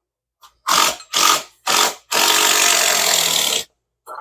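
Handheld power tool run in three short trigger bursts, then held on for about a second and a half before cutting off, as a bolt or bit is worked into the deck ledger.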